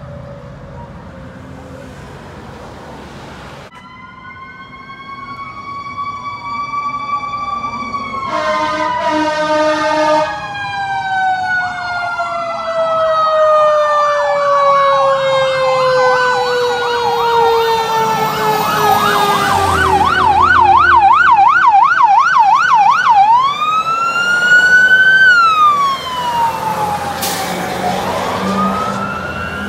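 Fire engine sirens passing close by: a slow falling wail, then a rapid yelp for about ten seconds, then a wail that rises and falls again near the end. A short horn blast sounds about eight seconds in, and the sirens grow louder as the engines approach.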